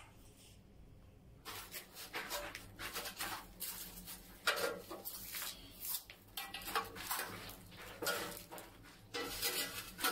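Irregular scraping and knocking of a ceramic wall tile being slid and pressed by hand against a concrete wall, with a few short squeaks. It starts about a second and a half in.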